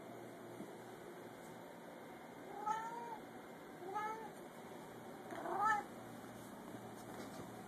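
Tabby house cat meowing three times, each meow rising and then falling in pitch, the last one the loudest: begging for the shrimp held above it in a bowl.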